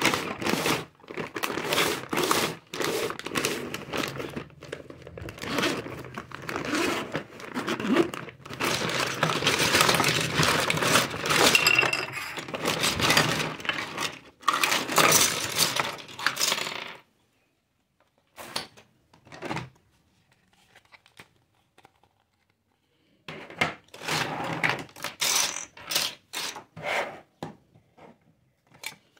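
Clear plastic bag crinkling and rustling while small hard-plastic toy kitchen pieces clatter and knock together as they are unwrapped and tipped out. Over the second half it thins to a few scattered clicks, then a run of sharp clacks as plastic pieces are set down on the table.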